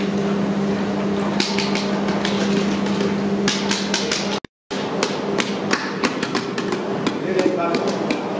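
Sharp knocks and clatter, several a second in places, over a steady low hum, with voices in the background. The sound drops out for a moment about halfway through.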